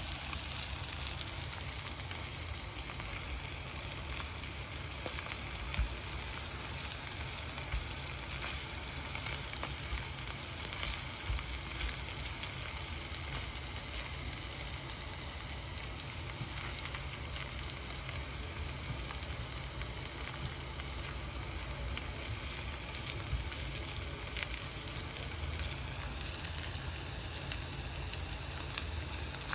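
Whole prawns frying in butter and garlic in a pan: a steady sizzle with small crackles scattered through it.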